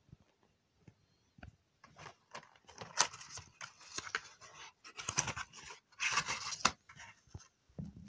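Cardboard pill carton being opened by hand and a foil blister pack of tablets pulled out: crinkling and rustling of cardboard and foil with scattered clicks, coming in several bouts, the loudest about three seconds in.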